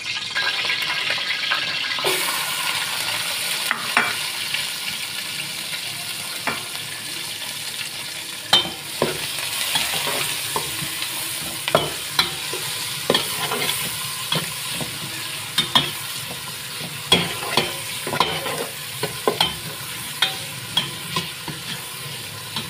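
Sliced onions sizzling in hot oil in a pot, with a metal spoon stirring and knocking against the pot; the knocks come often from about a third of the way in.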